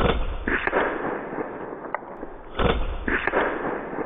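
A .22 gas-piston break-barrel air rifle firing, then, about half a second later, the pellet smacking hard into the target with a few smaller knocks after it. The same shot-and-hit comes twice, about two and a half seconds apart.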